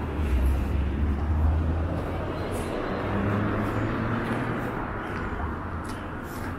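A motor vehicle passing, a low rumble with a noisy hiss over it, loudest in the first couple of seconds and fading away toward the end.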